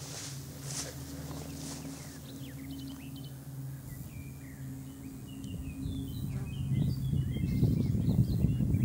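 Outdoor ambience of small birds chirping, over a steady low hum. From about six seconds in, gusts of wind buffet the microphone and grow louder.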